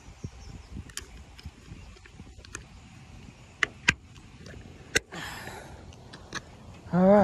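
Handling noise in a small fishing boat: a few sharp clicks and knocks spread apart, with a brief rustle about five seconds in, then a man's voice right at the end.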